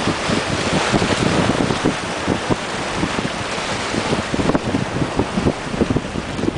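Wind gusting across the microphone in rapid, irregular rumbling buffets over the steady rushing wash of the sea.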